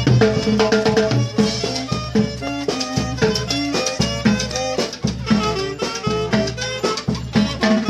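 Lively Latin dance music with brass and drums, playing on a steady beat.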